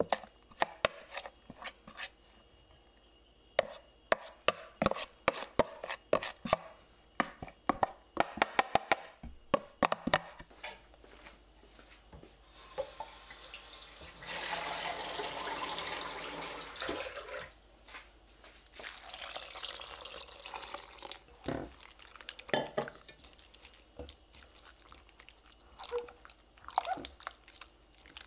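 A quick series of light knocks and scrapes as okara is pushed out of a container into a stainless steel bowl. Then a tap runs water into a glass bowl of chopped cabbage and chives twice, for a few seconds each time, and hands swish and splash the vegetables in the water.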